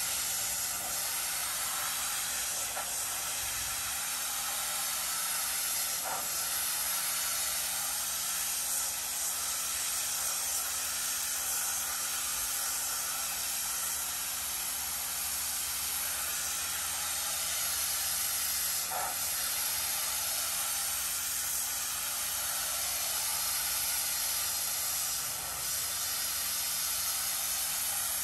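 Pressure washer spraying floor mats: a steady hiss of water jetting onto the mats, with a faint low hum underneath.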